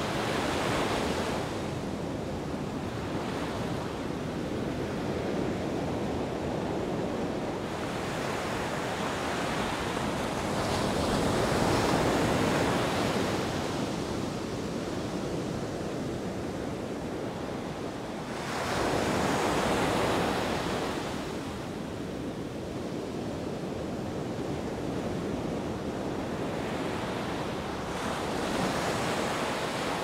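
Sea surf breaking on a beach: a continuous wash of waves, with slow swells as sets of breakers come in every several seconds. The biggest crashes come a little before the middle and again past the middle.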